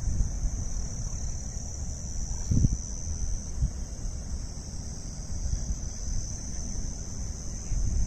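Steady, high-pitched insect chorus droning without a break, over a low rumble, with a brief low thump about two and a half seconds in.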